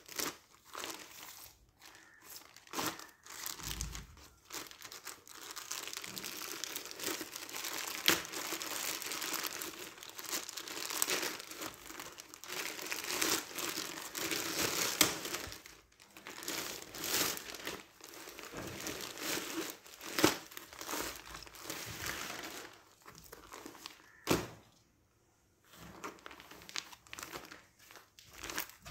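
Plastic courier mailer bag crinkling and rustling in the hands as it is opened, with sharp crackles of the plastic and a short pause near the end. Near the end the clear plastic bag holding the dress rustles as it comes out.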